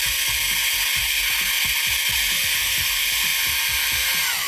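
Small hobby drill running steadily as a homemade paint stirrer, a piano wire bent into an L shape spinning in a paint-and-thinner mix. Near the end it is switched off and its whine falls away as it spins down.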